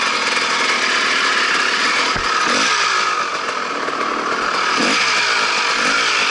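Dirt bike engine revving while riding a trail, its pitch rising and falling with the throttle several times. A dull thump comes about two seconds in.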